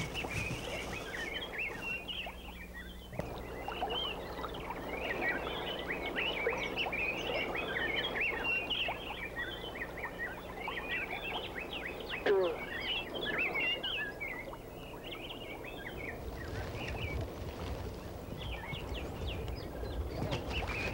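Many birds chirping and twittering together in a dense, continuous chorus, over a steady low hum. A low rumble comes in near the end.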